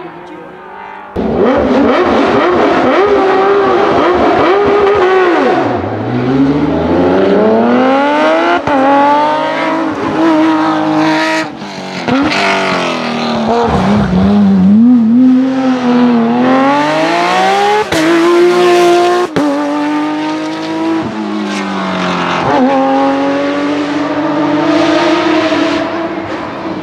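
Porsche 997 GT3 rally car's 3.6-litre flat-six at full throttle, its pitch climbing steeply through each gear of the sequential box and dropping back on the downshifts, again and again. It comes in suddenly and loud about a second in.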